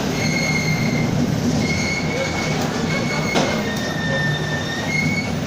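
Mercedes-Benz OF-1722M city bus under way: a steady low drone with a high-pitched squealing whine that comes and goes in stretches of about a second, dropping slightly in pitch for a while around the middle, and a brief knock partway through. This bus's driveshaft growls in second gear.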